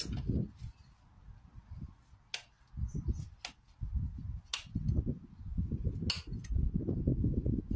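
Farrier's hand work on a horse's hoof: low, uneven rubbing and scuffing with about five sharp clicks scattered through.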